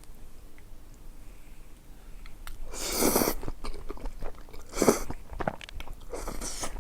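Close-miked eating: chewing, with three louder noisy bites or slurps about three, five and six and a half seconds in.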